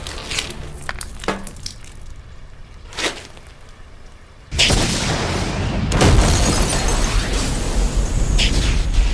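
Action-film soundtrack: scattered sharp cracks and breaking sounds, then about four and a half seconds in a sudden loud explosion that runs on as a heavy, continuous roar and swells a second later.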